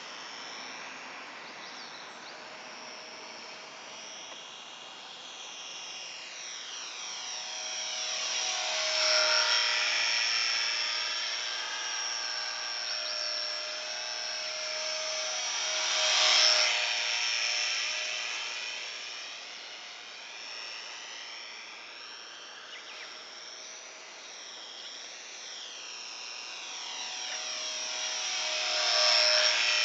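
Small electric radio-controlled park-flyer plane flying, its motor and propeller giving a steady high whine. It swells louder three times as the plane passes close, about a third of the way in, just past halfway, and at the end, with a shifting, phasing shimmer as it comes and goes.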